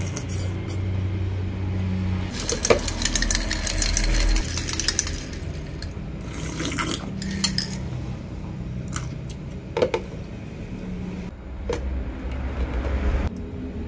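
Mealtime clinking: chopsticks and utensils knocking against bowls and dishes, and ice rattling in a glass mug of iced coffee. A dense run of clinks comes a couple of seconds in, then single clinks now and then, over a low steady hum.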